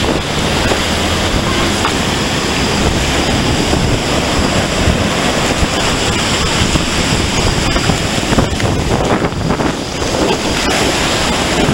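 Ocean surf washing in and breaking against piles of sand on the beach, with wind buffeting the microphone.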